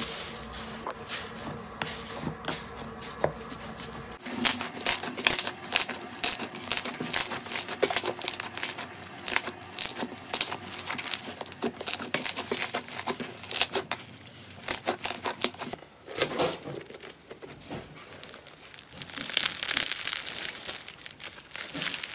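Hands pressing, squishing and kneading slime, giving a dense run of irregular crackling and popping clicks. It changes to a denser, hissier crunch in the last few seconds.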